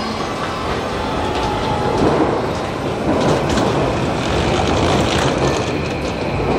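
Train running: a steady, loud wash of rail and carriage noise.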